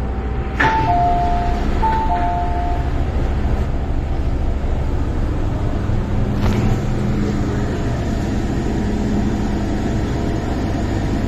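MTR M-Train electric multiple unit coming to a stop at a station: the low running rumble eases off, and a two-note chime, a higher note then a lower one, sounds twice about a second in. About six and a half seconds in a click comes as the passenger doors open.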